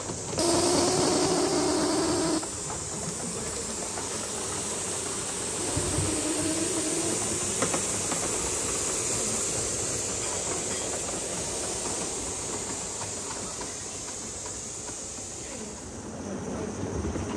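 Live-steam model locomotive hissing steam. A loud blast of steam with a low tone in it starts about half a second in and lasts about two seconds, then a steady softer hiss carries on as the engine runs.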